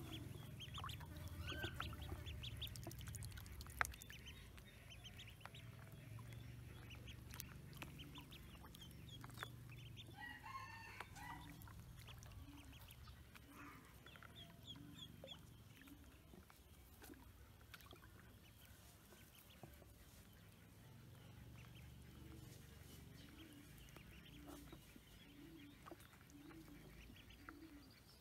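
A tub of young Pekin ducklings peeping faintly, short high peeps scattered throughout with a brief burst of calls about ten seconds in. Low clucking calls from an adult farm bird repeat in the background near the end.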